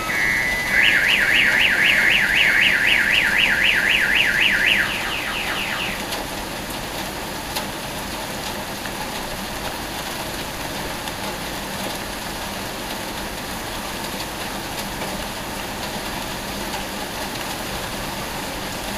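A car alarm's siren sweeping rapidly up and down, about four times a second, then cutting off about five seconds in. Steady rain hiss underneath throughout.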